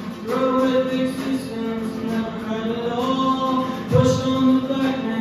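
A man singing long held notes while strumming an acoustic guitar, with a heavier strum about four seconds in.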